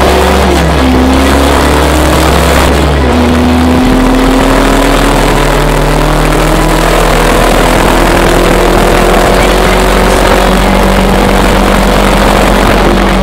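Car engine under acceleration, its pitch climbing slowly and dropping back at gear changes about one and three seconds in, then holding steady. Heard from inside the car.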